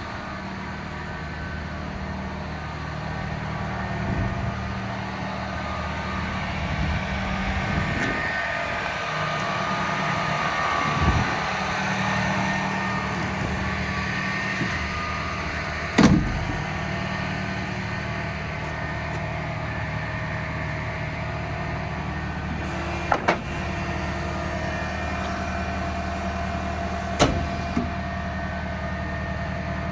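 Massey Ferguson RB3130F Protec baler-wrapper at work behind a tractor: a steady machinery drone over the engine's hum, with a few sharp clanks, one about halfway through, a quick pair a few seconds later and another near the end.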